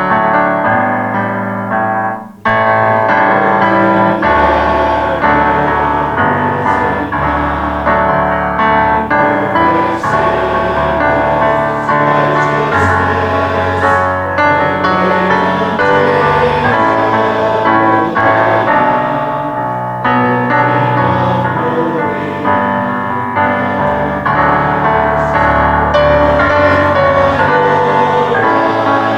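Hymn sung by many voices with keyboard accompaniment, in slow sustained phrases, with a brief break about two seconds in.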